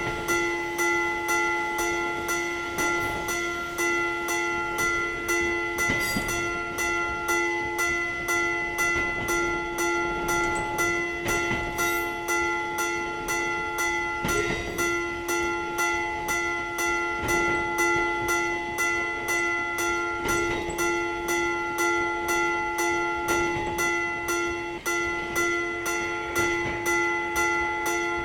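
Railway level-crossing warning bell clanging steadily at an even, repeating rhythm, the warning that a train is approaching and the barrier is down.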